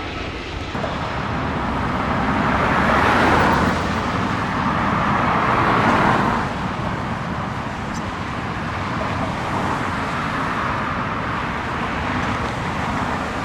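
Road traffic noise: a steady rush of cars and tyres, swelling louder twice, about three and six seconds in.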